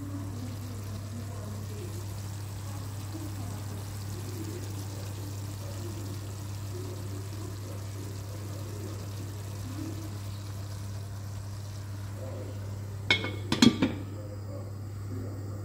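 Faint liquid sounds from cooking pots over a steady low hum. A few sharp clinks of a metal spoon against the pot come about thirteen seconds in.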